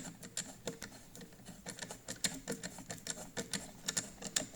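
Irregular light clicks and taps of a small metal bolt and fittings being handled as the bolt is started by hand into a leg of a garden shredder.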